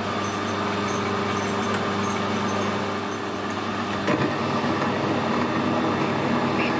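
Metal lathe running, its motor and gearing giving a steady hum, with a single click about four seconds in.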